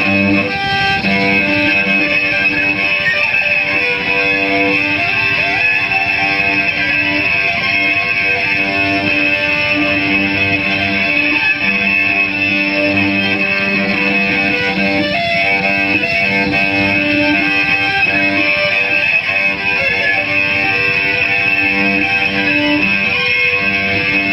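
Amplified cello bowed in an experimental improvisation: low droning notes that swell and break off every second or two, under a steady high ringing tone from the amplified instrument's feedback.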